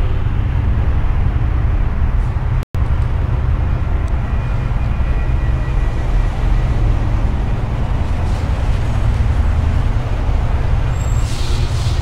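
Steady low rumble of nearby road traffic, trucks and cars passing, with the sound cutting out for an instant about three seconds in.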